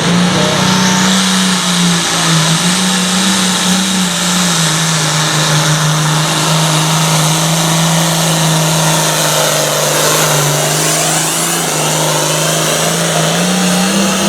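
Super farm class pulling tractor's diesel engine at full power under load during a pull. Its pitch holds steady, dips slightly about four seconds in, and climbs again near the end.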